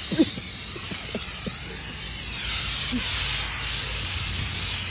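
Aerosol can of washable spray paint hissing steadily as it is sprayed onto a car's body panel.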